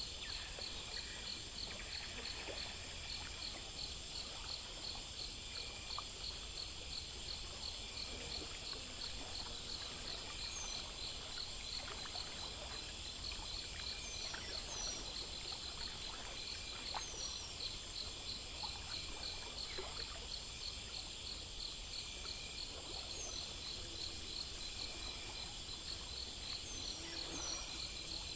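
Chorus of crickets and other night insects, several overlapping fast, steady trills, with a short falling chirp every few seconds.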